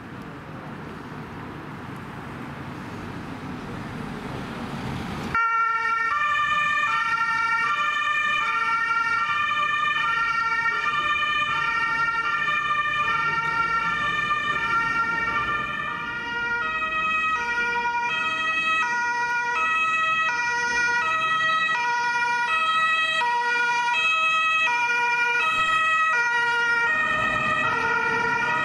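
Road traffic noise building for about five seconds. Then, starting suddenly, a German ambulance's two-tone siren (Martinshorn) sounds, alternating steadily between a high and a low note. From about halfway, a second siren's tones overlap it, out of step.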